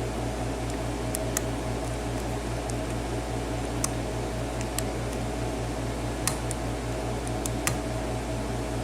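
Steady background hum with a low, slightly pulsing tone, over which a lock pick makes a few faint scattered clicks as it works the pins of a six-pin MAC padlock under light tension.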